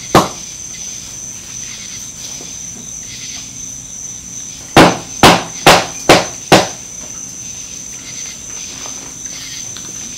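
A chisel is struck to crack open a plaster casting mold around an aluminum casting: one sharp knock just after the start, then a quick run of five blows about two a second near the middle. A steady high tone runs underneath.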